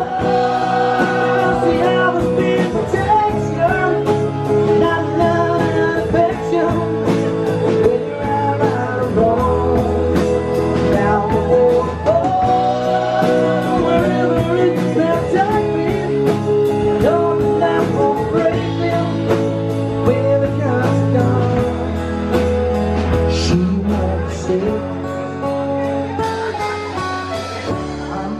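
Live acoustic rock band playing: a man singing over an acoustic guitar, with a drum kit keeping a steady beat.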